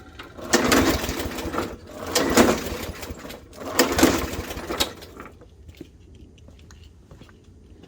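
Briggs & Stratton E450 push-mower engine being pull-started three times, each recoil pull a loud rush of about a second that cranks the engine without it catching. This is a no-start that the owner puts down to fuel starvation, almost certainly a clogged carburetor jet.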